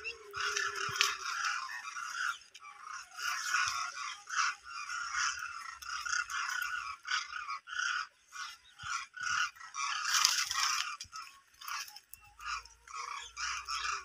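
A large flock of demoiselle cranes calling in flight high overhead: many short calls overlapping in a continuous, uneven chorus, with a brief rush of hiss about ten seconds in.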